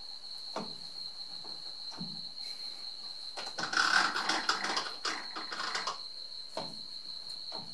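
Metal lathe parting off a workpiece with a parting tool: a rough, crackly cutting noise of about two and a half seconds in the middle, over a steady high whine, with a few single clicks before and after.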